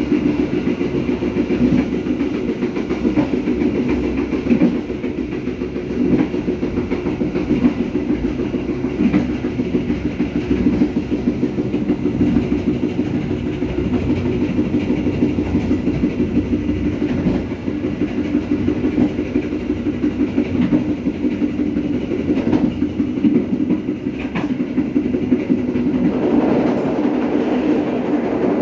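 Passenger train carriage running along the line, its wheels rumbling and clattering steadily on the rails, heard from the open rear end of the carriage. Near the end the sound grows fuller as the carriage runs onto a bridge.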